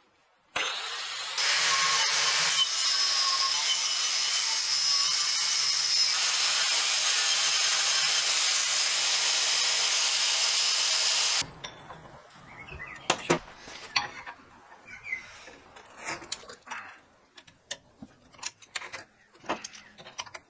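A power tool working on steel runs steadily for about ten seconds, then stops suddenly. It is followed by scattered light clicks and knocks of metal parts being handled.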